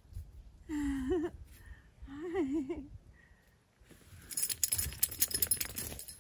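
Two short, high, wavering vocal sounds, then, from about four seconds in, a quick clatter of clicks and rattles as an inflatable paddleboard with a strapped-on seat is lifted upright and its fittings knock together.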